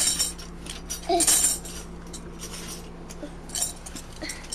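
Tambourine jingles shaken in irregular bursts, loudest near the start and about a second in, then fainter shakes.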